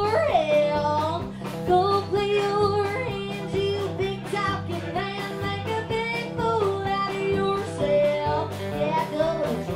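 A woman singing live into a handheld microphone over a country band, with guitar, a walking bass line and a steady drum beat.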